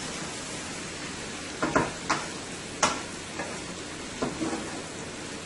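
Chicken pieces frying in hot oil in a pot with a steady sizzle, and a cooking utensil knocking against the pot several times as the chicken is stirred, in the middle of the stretch.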